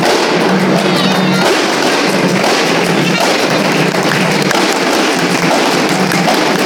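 An ensemble of kompang, Malay hand-struck frame drums, played together in a fast, dense, unbroken stream of hand strokes.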